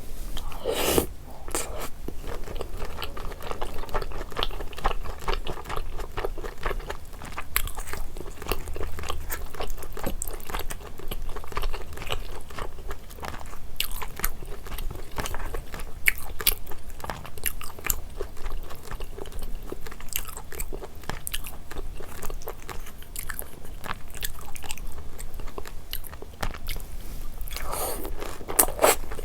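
Close-miked eating: chewing and biting through rosé braised chicken and thick Chinese glass noodles, a dense run of small clicks and mouth sounds, busier about a second in and near the end.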